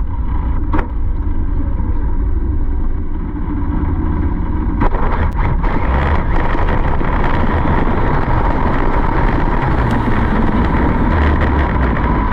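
A vehicle running at speed with a steady whine, over heavy wind rumble on the microphone.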